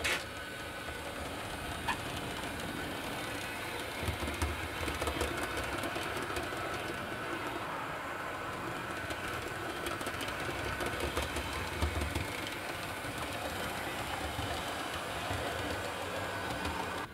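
Model diesel locomotive running with its wagons, the motor whirring steadily and the wheels clicking over the points and double slip, the hum swelling now and then.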